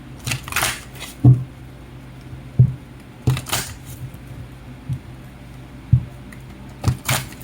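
A deck of cards being shuffled and handled: a few short papery swishes and light, irregular knocks of the cards against a surface. Soft background music runs underneath.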